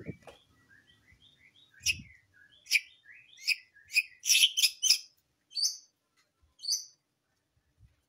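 White-rumped shama singing: a run of soft quick notes, then from about two seconds in a string of loud, sharp notes, most rapid around the middle, with the song stopping near the end.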